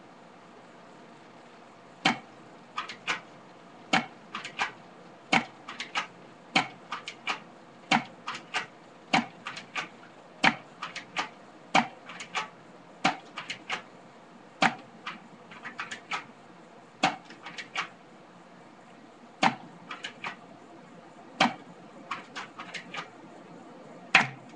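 Airsoft M1911 pistol firing shot after shot at a tomato target, a sharp crack about every second and a half, each followed by one or two fainter clicks.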